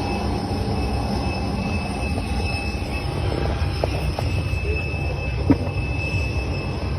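Steady airport machinery drone with thin high whining tones running through it, a few faint knocks, and a short sharp click about five and a half seconds in.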